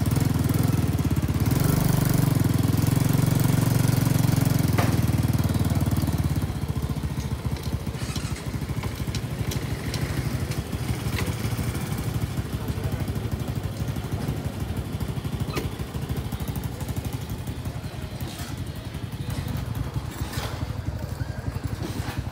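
Small engine running, louder and steadier for the first six seconds, then quieter and more uneven.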